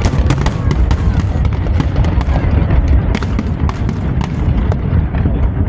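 Fireworks display: many sharp bangs and crackles in quick succession over a continuous low rumble of booms.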